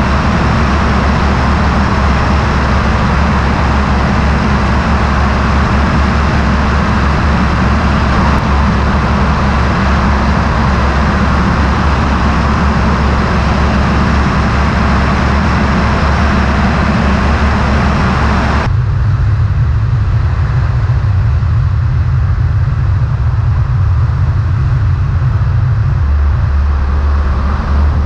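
Apollo Fox ultralight's engine and propeller running steadily under a loud rush of air over the wing. About two-thirds of the way through the sound changes abruptly to a duller engine note with much less rushing air.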